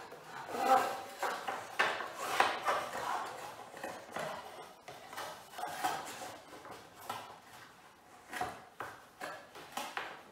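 Scalextric plastic track sections and their raised support pieces being handled and fitted together on a wooden floor: irregular rubbing and scraping with small clicks and knocks.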